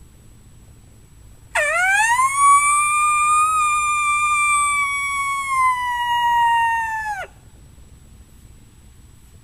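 Custom diaphragm coyote howler call blown in one long howl starting about a second and a half in. It rises quickly at the start, holds steady, sags slowly and drops off sharply at the end.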